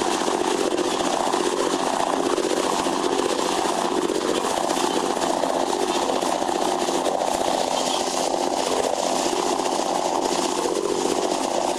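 Twin Iveco N67 six-cylinder diesel engines of an 11-metre catamaran running steadily at cruising speed, together with the rush of the churning wake behind the stern.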